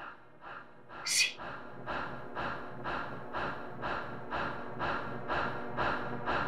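A woman's rhythmic panting, about two breaths a second, swelling after a sharp hissing intake of breath about a second in.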